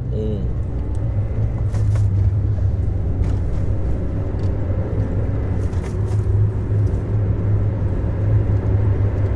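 Car driving along a highway: a steady low rumble of road and engine noise heard from inside the cabin.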